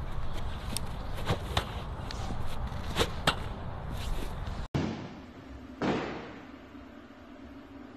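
Lacrosse stick shooting balls: a series of sharp cracks, about five in the first half, over a low rumble. After a brief dropout the sound changes to a quieter, echoing room with a single dull thud of a ball about six seconds in.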